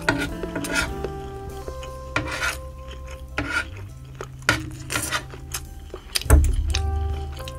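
Spoon and fork scraping and clinking against a serving tray while scooping fried rice and cutting into a block of luncheon meat, with a louder dull knock about six seconds in. Background music plays underneath.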